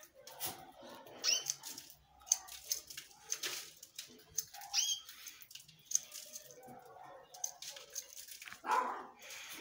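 A dog barking and yelping in short, separate calls, the loudest near the end.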